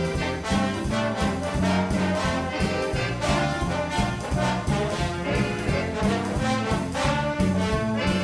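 Recorded big band playing a jazz number: the brass section leads over bass and drums with a steady beat.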